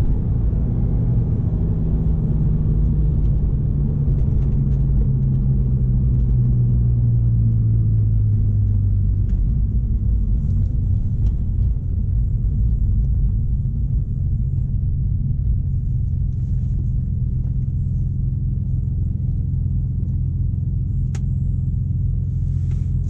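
BMW S54 3.2-litre inline-six in an E46 wagon, heard from inside the cabin. The engine note falls slowly for the first several seconds as the car slows, then settles into a steady low hum as it rolls up behind traffic.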